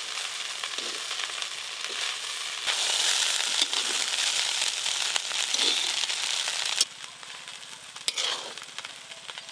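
Fried rice sizzling in a large metal kadai as a metal spatula stirs and turns it. The sizzle grows louder a few seconds in and drops off about seven seconds in, with a couple of sharp taps of the spatula on the pan near the end.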